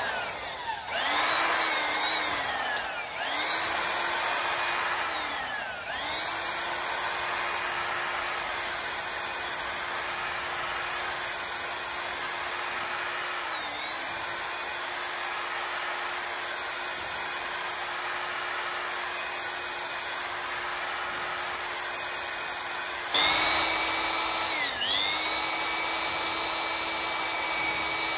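Electric drill spinning a glaze-busting hone in the cylinder bores of a Leyland 698 engine block: a steady motor whine that sags in pitch and picks up again a few times as the hone loads up, over a rasp of the hone on the bore that swells and fades about every two seconds.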